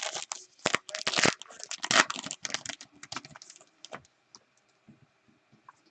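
A trading card pack's wrapper being torn open and crinkled, with cards handled: a quick run of sharp crackling and rustling for about four seconds, then only faint scattered ticks.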